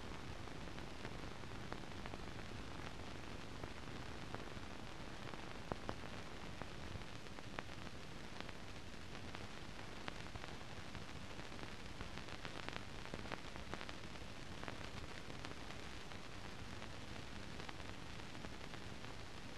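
Steady hiss with scattered clicks and crackles, a few louder ones about six seconds in: the bare noise floor of a silent newsreel film transfer, with no recorded sound.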